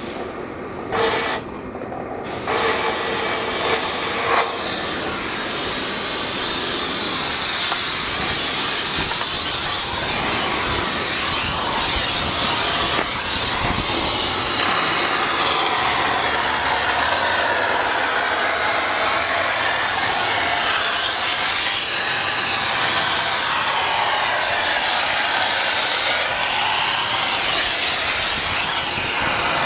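Spray foam gun hissing: a couple of short purge blasts into a bucket, then from about two seconds in a continuous hiss as foam is sprayed into the wall cavities.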